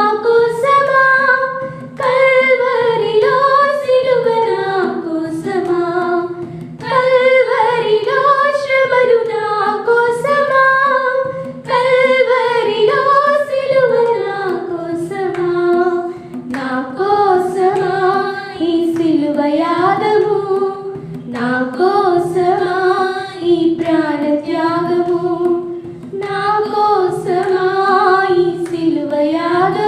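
A small group of women singing a hymn unaccompanied, one voice led through a microphone, in phrases of a few seconds with brief breaths between them.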